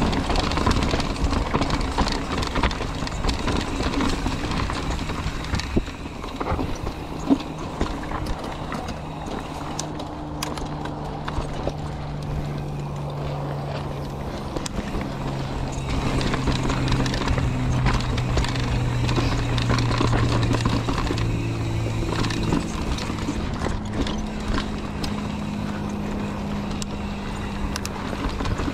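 Mountain bike rolling down rocky singletrack: tyres rattling and crunching over rock and loose gravel, with scattered knocks. A steady hum rises and falls slowly in pitch as the speed changes.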